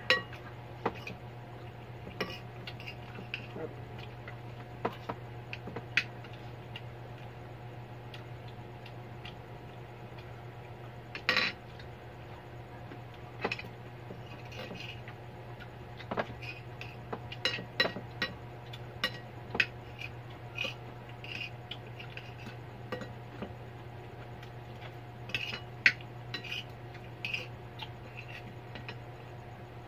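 Spoons and forks clinking and scraping against plates as two people eat, in scattered irregular clicks with one louder clatter about eleven seconds in. A steady low hum runs underneath.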